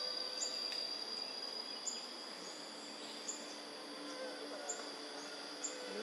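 Forest insects keeping up a steady high-pitched drone, with short thin high chirps every second or so.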